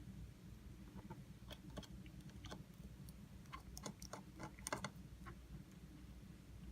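Faint, irregular light clicks and taps from small tools and parts being handled inside an opened iPhone 6S, over a low steady hum.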